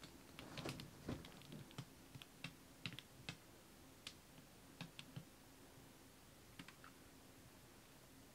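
Faint, scattered small ticks and taps from a wet acrylic pour canvas being held and tilted over plastic sheeting, a cluster in the first second or so, then single ticks every second or so, over a low steady room hum.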